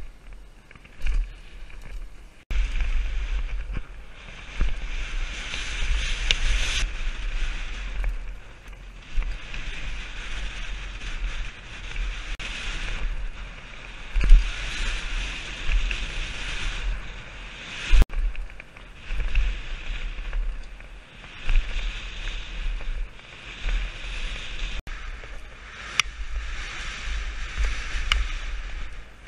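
Mountain bike descending a loose dirt trail at speed: wind buffets the helmet camera's microphone in gusts over a steady hiss of tyres on dirt and gravel. A few sharp knocks and rattles come from the bike over bumps.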